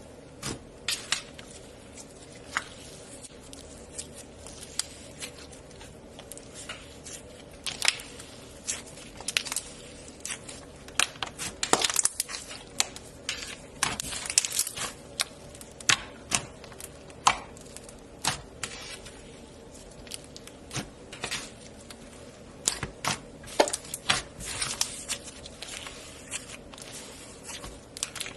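Slime being handled, squeezed and worked by hand, giving irregular sticky crackles and pops, some louder than others.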